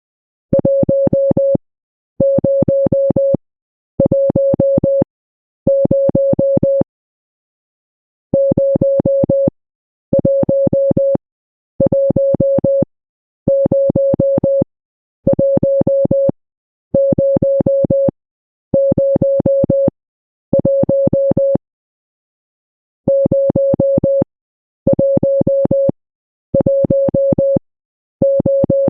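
Electronic Morse code beep: a single steady mid-pitched tone keyed on and off in long dashes of about a second each, with a longer pause twice.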